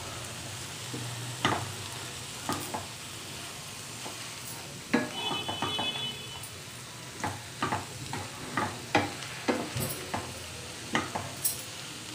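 A utensil stirring leafy greens and moong dal in a pan, with irregular scrapes and taps against the pan over a faint steady sizzle of the greens cooking in their own released water.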